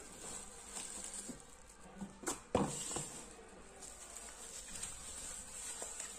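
Bubble wrap and plastic packaging crinkling and rustling as a wrapped digital kitchen scale is handled and lifted out of its cardboard box, with a louder crackle and knock about two and a half seconds in. A faint steady high-pitched whine runs underneath.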